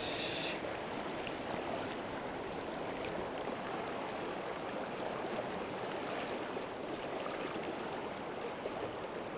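Rushing mountain-river rapids: a steady, even wash of flowing water. A short splashy hiss comes right at the start.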